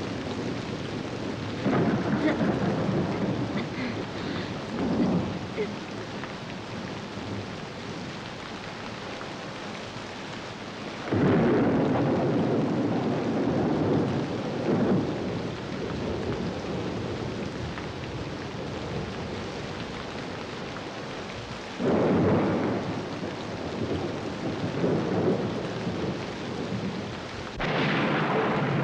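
Steady rain with four claps of thunder, roughly ten seconds apart, the last near the end. Each clap starts suddenly and rumbles away over several seconds.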